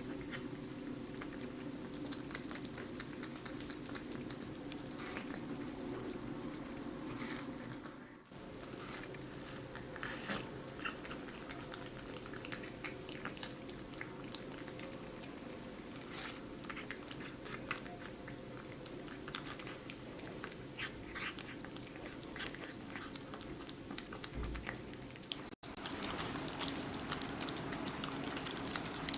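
A cat and a dog chewing and biting watermelon: irregular wet crunching and smacking clicks over a steady low hum.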